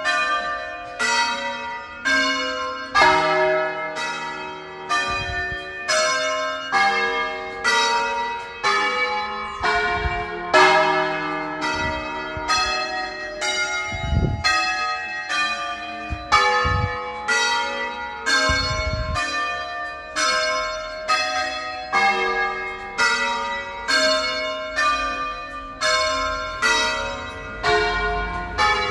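Church bells of a 12+1 ring in E-flat rung by hand in the Veronese style: nine of the largest bells sound one after another in a steady run, about one and a half strokes a second, each note ringing on into the next.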